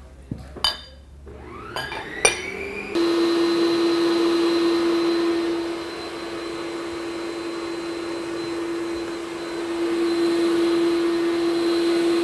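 Electric stand mixer: a few clicks as its tilt head is lowered and locked, then the motor spins up with a rising whine and runs steadily, its balloon whisk beating egg whites and sugar into meringue.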